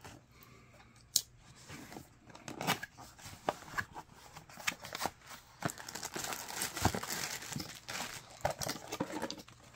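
Cardboard packaging box being opened by hand: scattered scrapes and clicks of the lid and flaps, then a steadier rustle and crinkle of the plastic bag wrapping the reel as it is pulled out over the last few seconds.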